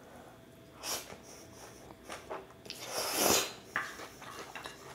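A person eating spicy cold chewy noodles (jjolmyeon) with chopsticks: a few short mouth and chopstick sounds, and one longer, louder slurp about three seconds in.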